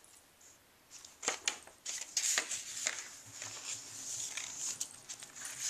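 Loose sheets of paper rustling and crackling as they are handled and flipped over by hand. The sound starts about a second in.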